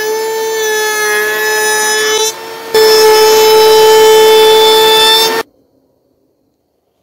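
Table-mounted router running with a steady high whine as a plywood test piece is fed along the fence past the bit. The whine dips briefly a little past two seconds in, comes back louder, then stops abruptly about five and a half seconds in.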